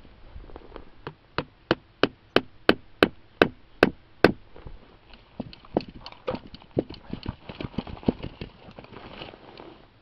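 Sharp knocks of a thin G-10 and titanium composite knife blade being struck and driven into a frozen log. A regular run of about three loud strikes a second comes first, followed by quicker, lighter, irregular knocks.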